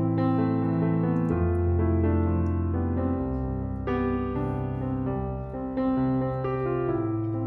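Background piano music: slow, sustained chords that change every second or two.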